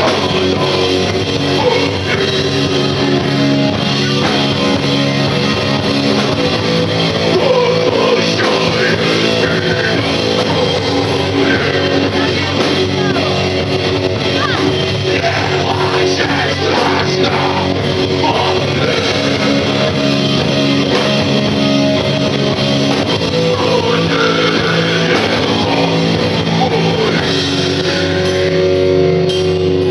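Rock band playing a heavy, guitar-driven song live, with singing.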